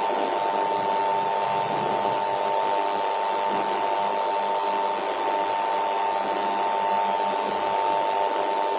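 A steady high-pitched electronic tone held on one pitch over a constant hiss.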